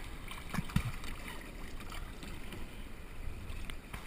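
Water sloshing and splashing around a kayak in shallow surf, with wind on the camera microphone and two short low thumps a little after half a second in.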